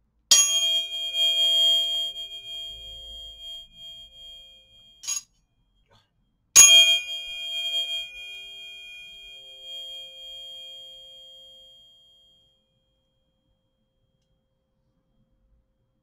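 Tuning fork struck twice, about six seconds apart; each strike rings out with a bright metallic tone and high overtones that fade away over several seconds. A brief soft noise comes just before the second strike.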